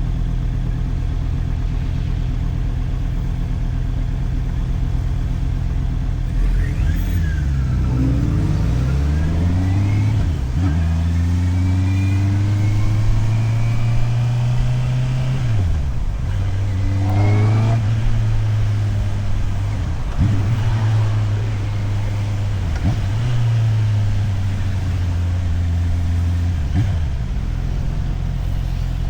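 Motorcycle engine idling steadily, then pulling away, its pitch rising and dropping through several gear changes and holding at a steady cruise. It slows about halfway through, runs on at varying revs with a few brief dips, and settles back to a steady idle near the end.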